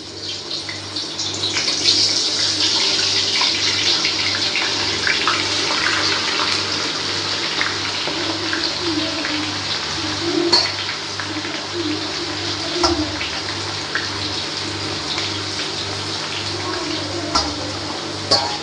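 Boiled jackfruit pieces deep-frying in hot oil in a kadhai: a loud, steady sizzle that builds over the first couple of seconds as the wet pieces hit the oil, with occasional sharp pops.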